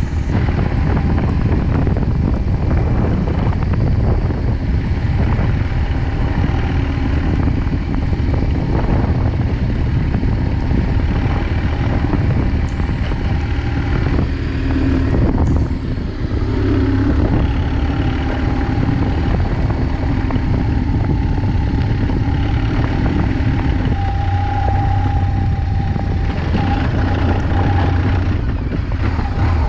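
BMW R1200GS flat-twin boxer engine running steadily as the motorcycle is ridden slowly, with a constant low rumble.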